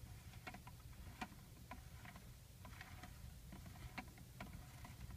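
Faint irregular ticks and clicks, about one or two a second, over a low hum, from the rotating turntable turning the figure.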